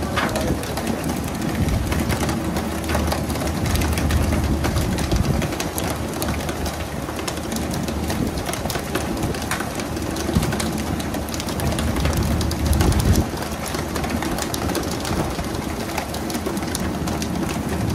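Pole-and-line tuna boat at sea: a steady low engine rumble under the hiss of water sprays and splashing, with irregular clicks and thuds as tuna are poled aboard and slap onto the deck, louder about ten and thirteen seconds in.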